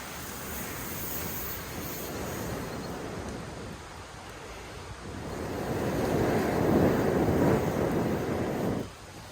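Rushing wind noise that swells loudly from about five seconds in and then cuts off suddenly near the end.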